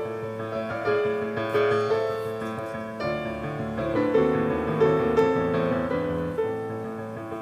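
Piano music: a slow melody of sustained notes over a low accompaniment.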